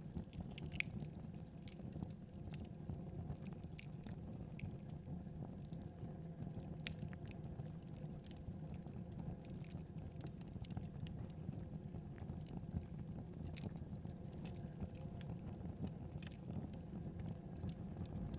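Wood fire burning in a fireplace: a steady low rumble of flames with irregular sharp crackles and pops scattered throughout.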